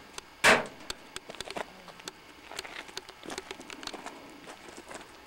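A sharp scuff about half a second in, then scattered small clicks and crunches of footsteps on loose rock and gravel.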